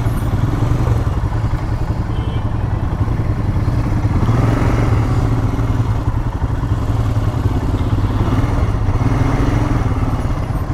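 Royal Enfield Himalayan's 411 cc single-cylinder engine idling steadily in stopped traffic.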